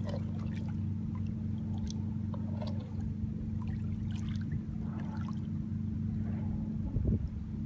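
Light splashing and trickling of shallow water at the shoreline over a steady low hum, with a low thump about seven seconds in.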